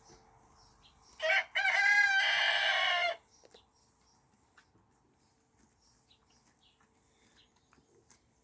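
A rooster crows once, starting about a second in: a short opening note, then a long call of about a second and a half that drops in pitch as it ends.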